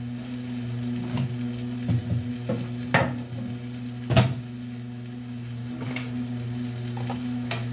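Egg-and-tomato mixture sizzling in a frying pan over a steady low hum, with a few sharp utensil clicks and knocks; the loudest knock comes about four seconds in.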